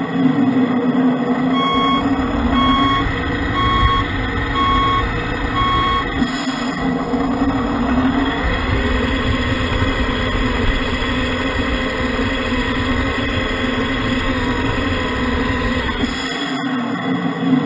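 Radio-controlled model trucks running: a steady engine-like drone from the trucks' drive and sound units, with pitch sliding up and down as they drive. About two seconds in, an electronic reversing beeper sounds five times, about once a second.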